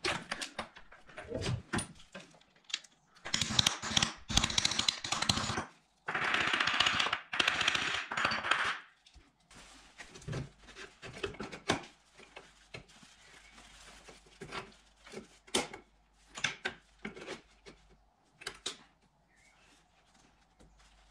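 A socket tool on the motorcycle's front sprocket nut gives scattered clicks, then two long stretches of rapid metallic rattling a few seconds in. After that comes quieter irregular rubbing and scraping as a rag wipes down the chain and swingarm.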